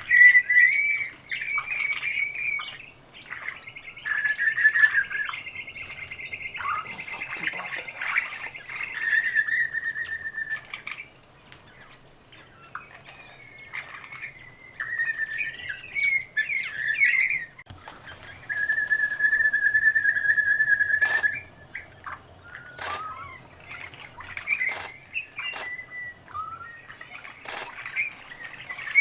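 Several wild birds calling over one another: clear whistled notes, a rapid rattling trill lasting about five seconds, and a long steady whistle near the middle, with sharp chips scattered throughout.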